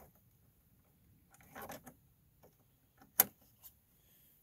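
Quiet handling sounds from hand-starting the small mounting screws of a plastic degas bottle (coolant reservoir): a brief rustle about a second and a half in, then one sharp click a little past three seconds and a fainter one just after.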